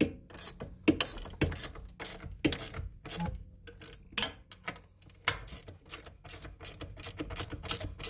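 Ratcheting wrench clicking as a mounting bolt is tightened, the pawl ticking over on each return stroke. About three clicks a second at first, quickening to four or five a second after the middle.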